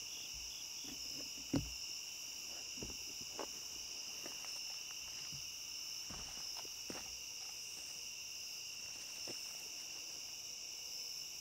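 Steady chorus of crickets and other night insects, several trilling tones layered together, with scattered light knocks and rustles of someone moving about; one sharper knock comes about a second and a half in.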